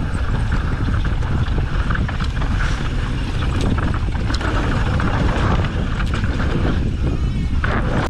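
Mountain bike descending a rocky dirt trail, heard from a helmet-mounted camera: steady wind rush over the microphone and tyre rumble, with frequent rattling clicks from the bike over the bumps.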